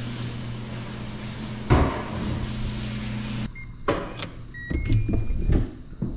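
A steady hum with a single knock cuts off sharply, then an Evernet digital door lock's keypad beeps a few times as a code is entered and its latch clicks and whirs open.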